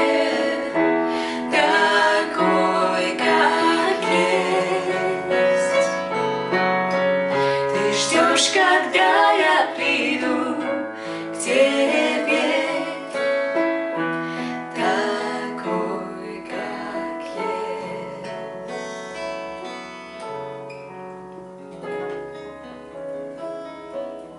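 Women singing a slow worship song to acoustic guitar and piano, getting gradually quieter through the second half as the song winds down.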